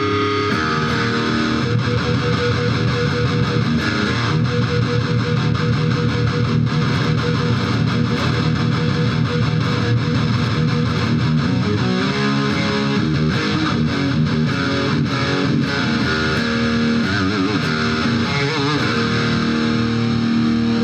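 Electric guitar played through a Boss GX-100 amp-modelling processor into a Fender FR-12 full-range powered cabinet, on a crunchy rock-and-roll overdrive setting.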